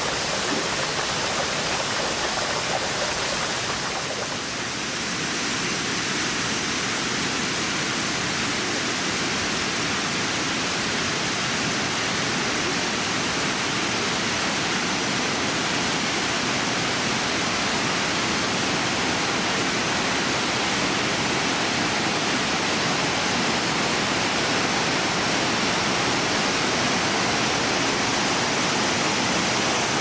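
Steady rush of falling water from Shiraito Falls, where many thin cascades of spring water pour from between the lava layers down a mossy lava cliff, along with the streams running over lava rock below them. The sound dips slightly about four seconds in, then holds even.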